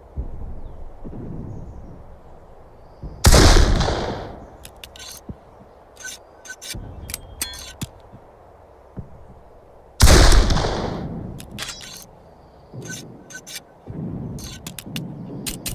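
Two shots from a Pattern 1853 Enfield, a .577 percussion muzzle-loading rifle-musket, about seven seconds apart, each with a long rumbling tail. Sharp metallic clicks and rattles of the gun being handled come between and after the shots.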